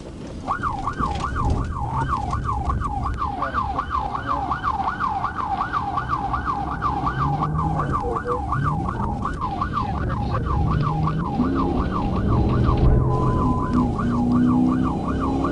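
Police car siren in fast yelp mode, sweeping up and down about three times a second, over the patrol car's engine and road noise during a pursuit.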